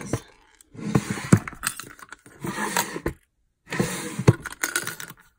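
Small wooden drawers being pulled open and pushed shut, the loose metal embellishments inside rattling and clinking. It comes in three bursts of clatter with short pauses between them.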